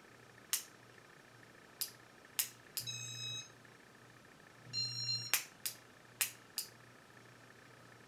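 1984 Casablanca Panama ceiling fan running with a faint steady hum while its controls are worked: about eight sharp clicks, and two short buzzing tones of about half a second each, around three and five seconds in. The light kit is switched on and then off.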